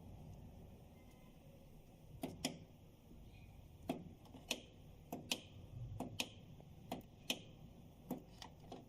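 Sharp button clicks from keying parameter values into an elevator motor drive's menu, about a dozen presses at an uneven pace starting about two seconds in, over a faint low rumble.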